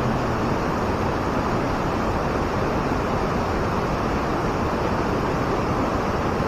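Steady rushing of a swollen mountain river running high, an even noise with no break.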